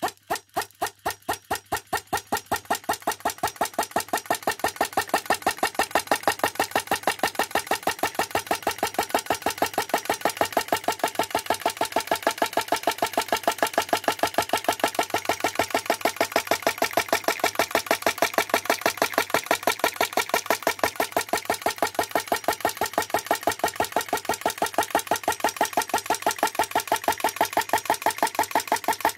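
Model flame gulper (flame-licker) engine starting up and running, a rapid regular knock on each turn. The beat quickens and grows louder over the first few seconds as the engine comes up to speed, then runs steady.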